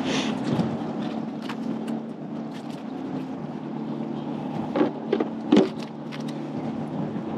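Steady low engine hum, with a few sharp knocks a little past the middle.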